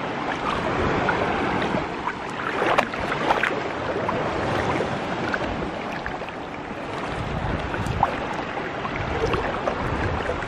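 Seawater sloshing and splashing close by, with a few sharper splashes, over the steady wash of the sea.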